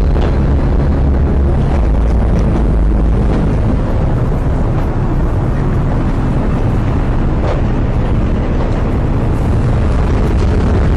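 Strong storm wind blowing on the microphone: a loud, steady low rumble with a hiss above it.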